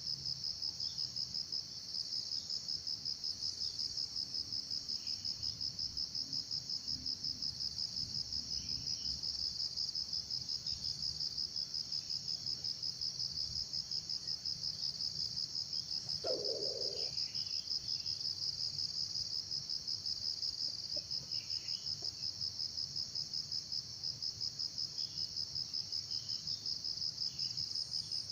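An insect trilling steadily and high-pitched, with a rapid pulsing to its tone. A short, low sound cuts in once about sixteen seconds in.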